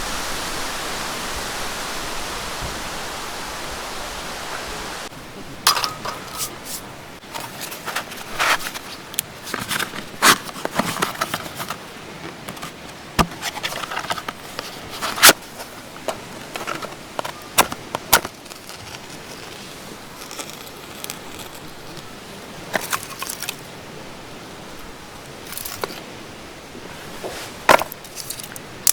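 A steady rushing noise for about five seconds, then a run of sharp clicks, clinks and scrapes as camping gear is handled.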